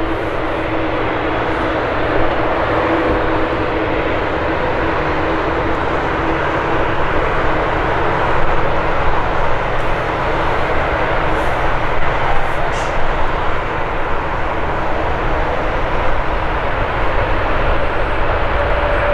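Boeing 787-9's GEnx-1B turbofan engines running as the airliner taxis onto the runway and rolls away for departure: a steady, dense jet roar. A faint steady hum under it fades out over the first few seconds.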